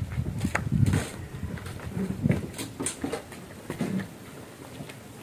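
Irregular knocks, clicks and scuffs from handling a sound-system equipment case, the heaviest in the first second.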